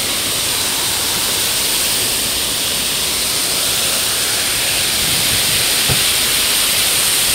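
Steady rushing splash of water pouring in a curtain over the rim of a large cascade fountain into its basin.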